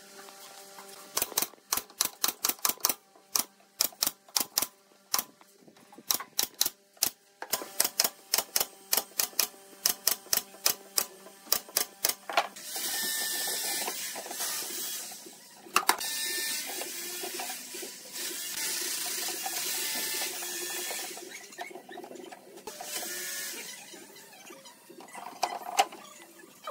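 A quick, irregular series of sharp knocks on wood for about the first half, then a steady scraping hiss of wooden parts sliding against each other as the cube's frame and box are fitted together.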